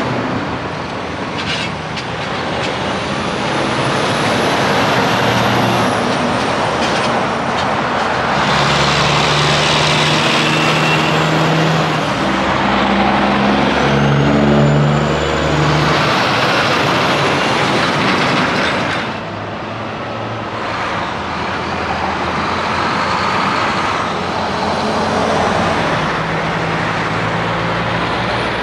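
Diesel semi-trucks driving past, engines running under tyre and road noise, one after another; near the middle an engine note climbs in steps as a truck accelerates through its gears.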